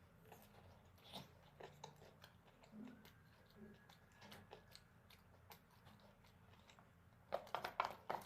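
Close-up eating sounds of a person chewing and biting food: soft scattered mouth clicks and smacks, then a louder run of sharp bites and mouth noises near the end.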